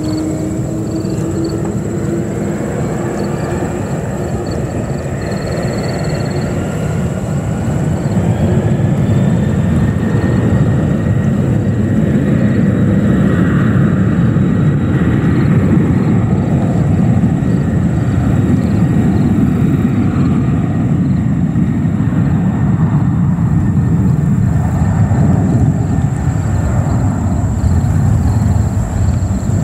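Jet engines of a four-engine Boeing 747 freighter at takeoff power on the takeoff roll: a whine that rises in pitch over the first ten seconds or so, then a loud, steady rumble as the plane accelerates toward liftoff.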